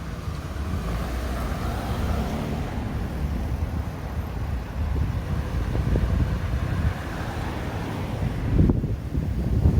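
Road traffic passing through an intersection, a steady rumble with wind buffeting the microphone, swelling briefly near the end.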